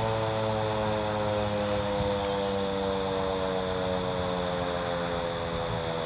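Federal Signal 2001-130 rotating electromechanical siren winding down after its test, its steady tone sliding slowly lower in pitch. A steady high-pitched insect trill runs alongside it.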